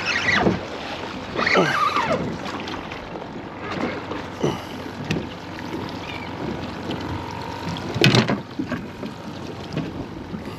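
Water lapping and splashing against the hull of a small fishing boat on choppy open water, with one sharp knock about eight seconds in.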